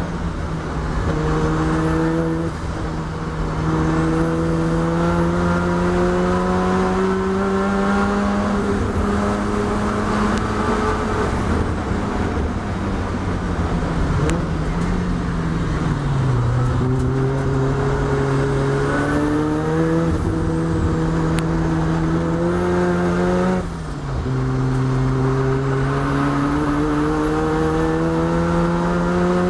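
Mazda RX-7's two-rotor rotary engine heard from inside the race car at high revs, its pitch slowly climbing. Around the middle the revs fall away and then build again, and about three-quarters of the way through a brief drop in sound and pitch marks a gear change before it pulls up through the revs again.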